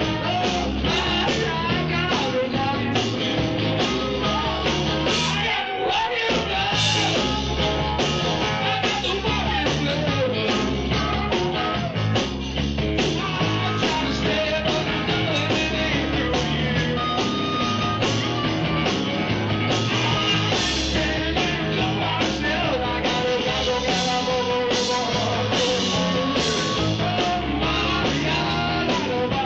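Blues-rock band playing live, with singing over a steady beat.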